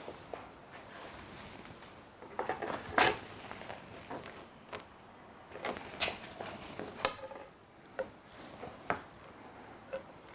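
Scattered knocks, taps and rustles as a semi-flexible solar panel is handled and laid in position on a rooftop tent, with a short rasp about seven seconds in.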